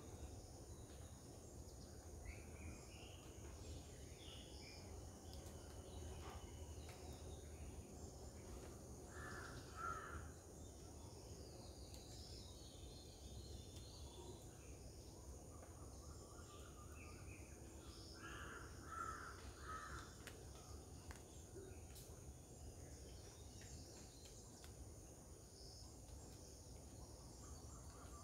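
Quiet garden ambience with scattered bird calls over a faint steady low hum. The loudest calls are short harsh notes in clusters of two or three, about ten seconds in and again about nineteen seconds in.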